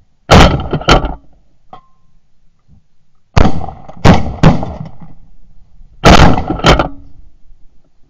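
Shotgun volley at passing Canada geese: about seven loud shots in three quick bursts, two near the start, three about three and a half seconds in, and two about six seconds in.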